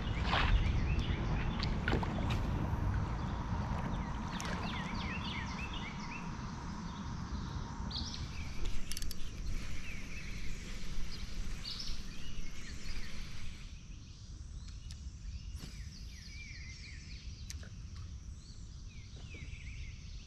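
Songbirds chirping in short, repeated phrases over a steady low rushing noise. The rushing eases about two-thirds of the way through.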